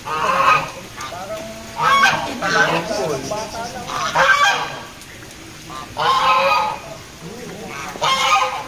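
Domestic geese honking: a series of loud calls, one roughly every two seconds.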